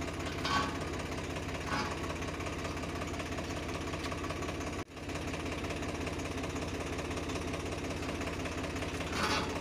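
Swaraj 744 FE tractor's three-cylinder diesel engine idling steadily. The sound cuts out for an instant about five seconds in.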